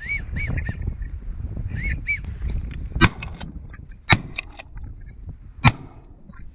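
Geese honking several times in quick succession, then three shotgun shots, about a second to a second and a half apart.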